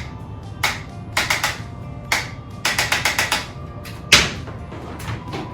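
Handheld chiropractic impulse adjuster clicking as it fires quick thrusts into the trapezius and neck muscles to break up adhesions: single clicks, a quick run of about five near the middle, and the loudest one a little past four seconds in. Background music plays underneath.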